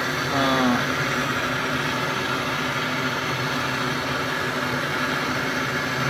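Handheld butane canister gas torch burning with a steady hiss while brazing copper refrigeration tubing.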